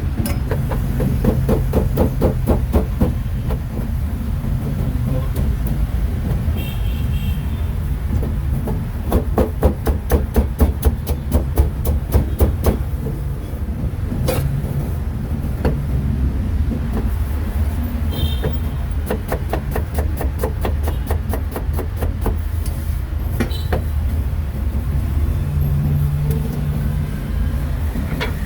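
Cleaver chopping pork in quick runs of sharp strikes, several a second, with pauses between the runs, over a steady rumble of street traffic.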